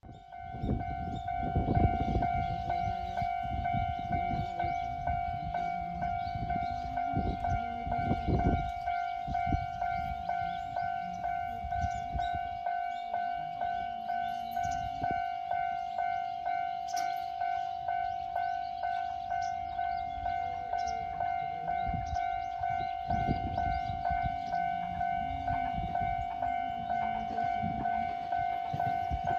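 Japanese railway level crossing's electronic warning bell starting up and ringing steadily in a fast, even clang-clang rhythm, the signal that a train is approaching. A low rumble comes and goes beneath it.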